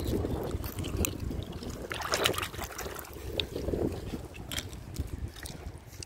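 Wind rumbling on the microphone, with scattered sharp clicks and a brief rustle about two seconds in.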